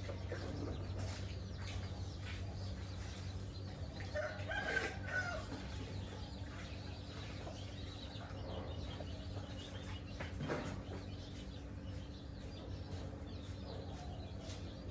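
Chickens clucking on and off, with one louder pitched call about four seconds in and a short knock later. A steady low hum runs underneath.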